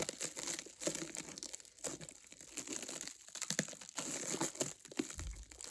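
Packaging wrap crinkling and tearing as it is handled and cut open, with irregular small clicks and rustles.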